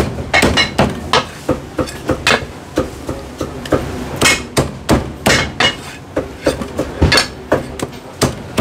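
Chinese cleaver chopping cooked chicken on a round wooden chopping block: a rapid, uneven run of sharp chops, about two or three a second, each a hard knock of the blade into the wood.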